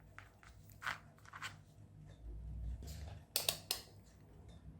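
Quiet handling noise of small battery packs and a multimeter being picked up and set down: light rustling, with a few sharp clicks, the loudest a close pair a little past three seconds in.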